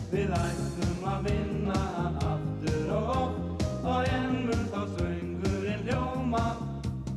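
Background music: a song with a sung vocal over a band and a steady beat.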